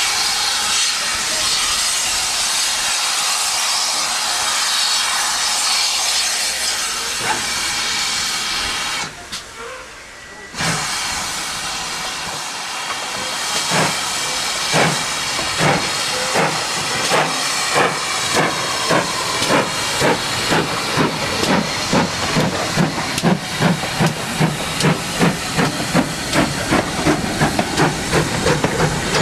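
GWR 'Dukedog' 4-4-0 steam locomotive 9017 with a steady hiss of escaping steam for about nine seconds, then a short drop-out. The engine then pulls away, its exhaust chuffs starting slowly and quickening to three or four beats a second as it gets the train moving.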